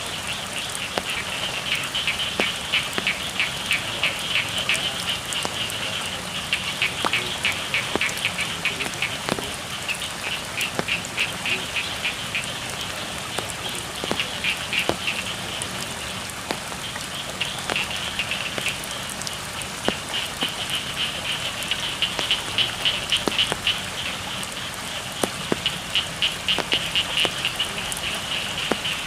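Steady rain with scattered drip clicks, under frogs calling in runs of rapid, high-pitched pulses that come and go every few seconds.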